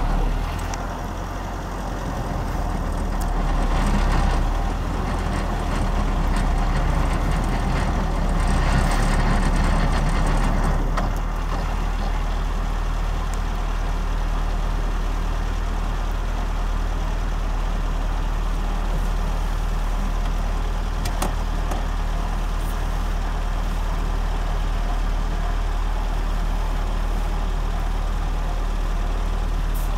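Land Rover engine running, louder and rougher for about the first eleven seconds, then idling steadily.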